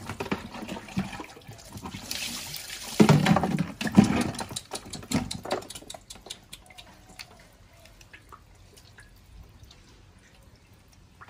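Water scooped from a bucket with a plastic dipper and poured over a wet baby monkey, splashing onto wet concrete. The splashing is loudest about three and four seconds in and dies down after about six seconds.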